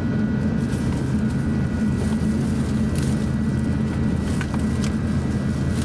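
Steady cabin noise of an Airbus A350-900 taxiing, its Rolls-Royce Trent XWB engines at low taxi power: a continuous low rumble with a thin steady whine above it.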